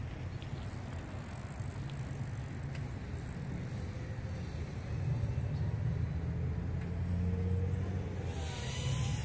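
Low steady rumble with the high-pitched motor whine of a small brushless FPV racing quadcopter sweeping past near the end, its pitch falling as it goes by.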